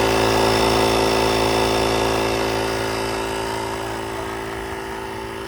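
Portable electric tire inflator running steadily, its motor humming while it pumps up the repaired tire, getting gradually quieter from about two seconds in.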